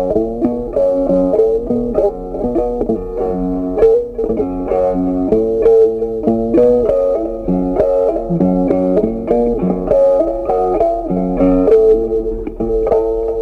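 Background music: a steady melody of plucked-string notes, guitar-like.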